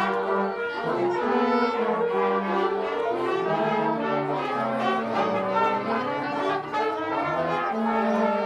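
A band room full of players warming up their instruments at once, mostly brass. Many held notes and fragments at different pitches overlap out of step with one another, making a dense, unco-ordinated din.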